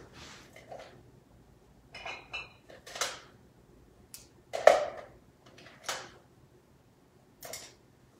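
Painting supplies being picked through on a table: a run of light clacks and clinks, about six in all, the loudest a little past halfway.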